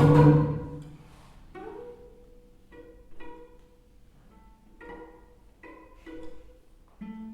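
Cello and double bass in a contemporary duet: a loud, dense passage breaks off right at the start and rings away. Then come about eight sparse pizzicato notes, plucked singly or in pairs, each dying quickly, half a second to a second apart.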